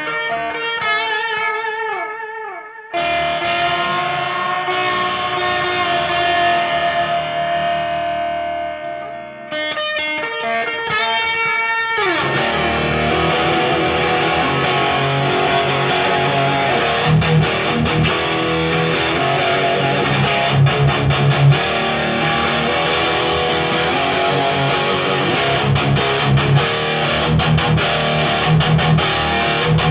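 Electric guitar, an Ibanez RGA42FM with a Seymour Duncan Omega bridge humbucker, played through a cranked Randall Diavlo RD20 tube amp with reverb and delay. For about twelve seconds it holds sustained ringing lead notes with downward pitch slides. Then a falling pitch sweep leads into heavily distorted high-gain metal riffing with rhythmic low chugs.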